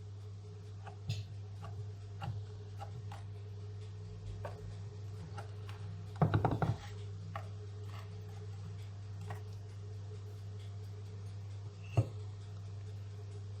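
Knife cutting through a brownie cake on a serving plate: scattered small clicks and scrapes, a cluster of louder knocks about six seconds in and one sharp tap near the end, over a steady low hum.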